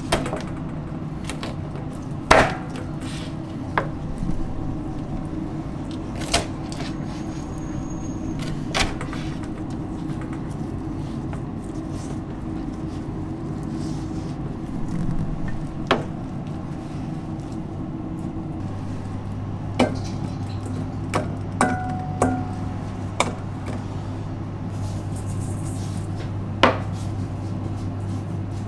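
Chef's knife cutting raw chicken wings apart at the joints, the blade knocking sharply on a plastic cutting board about a dozen times at irregular intervals. A steady background hum runs under it, with a lower hum joining about two-thirds of the way through.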